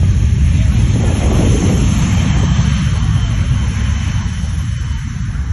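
Rear-engined twin-jet airliner at takeoff thrust: a steady, loud low rumble and roar, with its jet blast buffeting the microphone. It eases slowly over the last second or two.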